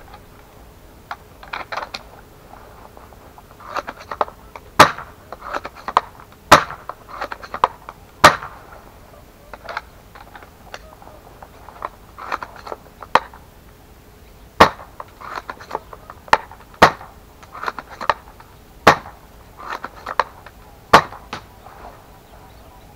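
SSG24 spring-powered bolt-action airsoft sniper rifle being cycled and fired over and over. Sharp shot snaps come about every one and a half to two seconds, with smaller clicks of the bolt being worked in between.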